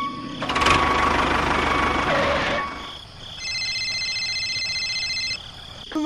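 Tractor engine sound effect revving hard and rattling for about three seconds. It is followed by a steady high two-note tone held for about two seconds.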